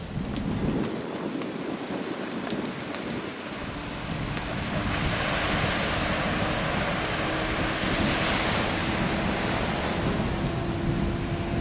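A Gulfstream business jet on final approach: a steady engine whine with a broad rushing hiss. It creeps slightly higher in pitch as the jet comes closer, and another, higher tone joins near the end. Wind noise on the microphone runs underneath, and it is the main sound for the first three seconds or so.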